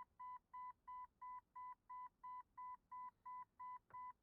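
1999 Jeep Cherokee XJ dashboard warning chime beeping steadily, about three short electronic beeps a second, set off by the headlight switch being pulled out.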